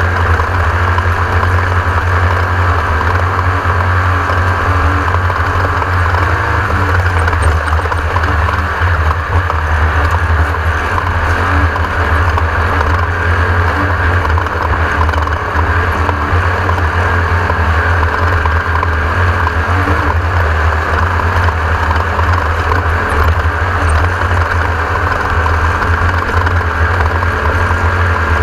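Class 1600 off-road race buggy running at speed, its air-cooled Volkswagen 1600 engine under steady load, making a loud, unbroken din with no change in pace.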